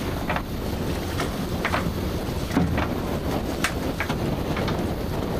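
Steady low rumble of a workboat with wind and water noise, overlaid by irregular sharp clicks and knocks, a few each second, as the mussel line is worked over the side.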